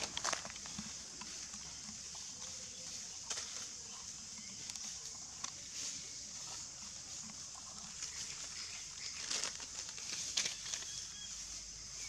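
Scattered rustles and crackles in dry leaf litter as long-tailed macaques shift and move about on it, over a steady high hiss.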